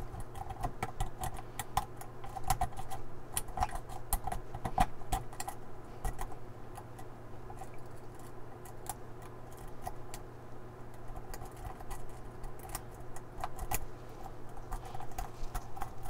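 Steel rake scraping and clicking over the pins of a double-sided cam lock held under tension, in quick, irregular runs of small metallic clicks.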